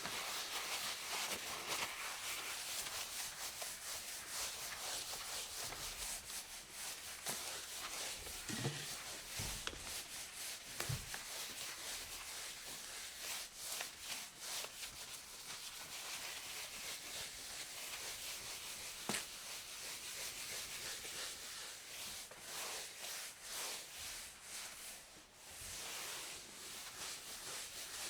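A cloth wiping a countertop: continuous irregular rubbing strokes, with a couple of soft knocks partway through.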